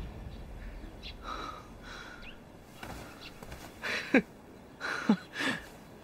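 A man's voice giving three short exclamations that fall sharply in pitch, about four, five and five and a half seconds in, with fainter breathy sounds before them.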